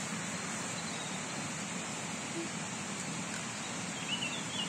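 Steady rush of running water, even and unbroken, with a few faint bird chirps about four seconds in.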